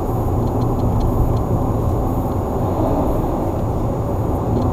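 Steady low rumble of a car's tyres and engine while driving along a highway, heard from inside the cabin.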